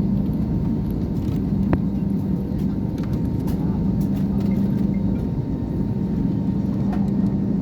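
Airbus jet engines and airflow heard inside the passenger cabin: a steady drone with a low hum that fades briefly about five seconds in.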